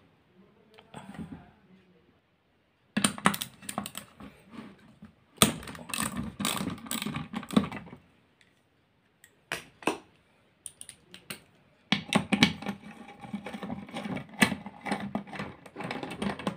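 Small ratchet wrench with a screwdriver bit clicking in rapid runs as it turns screws out of a vacuum cleaner motor's metal fan housing. Two long spells of quick clicking, with a few single clicks between.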